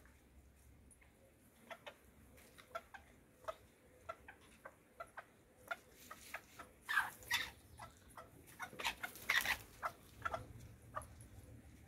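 Hens clucking in short, irregular notes, with louder calls about seven and nine seconds in.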